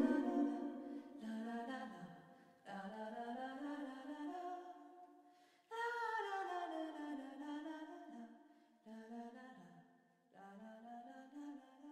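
A woman humming a slow, wordless melody, unaccompanied, in five short phrases with brief silences between them as the song closes.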